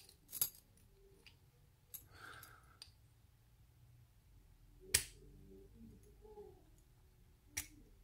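Faint metallic clicks from a key being turned in a cut-away Vita Euro cylinder lock. A few scattered clicks, the sharpest about five seconds in and another near the end.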